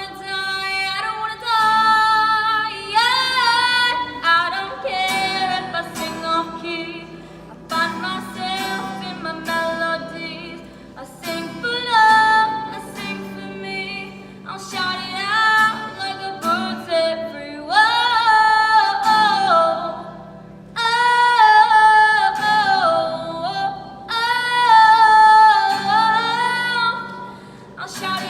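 A female singer sings sustained, wavering notes with wide vibrato in phrases a few seconds long, over a steady instrumental accompaniment.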